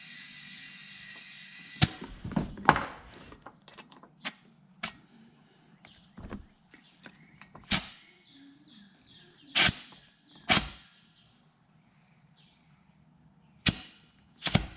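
Steady hiss of air from a portable air tank's hose into a cart tire stops about two seconds in. It is followed by about ten short, sharp hisses and clicks as the air chuck or a pressure gauge is pressed on and pulled off the tire's valve stem, with a few dull knocks.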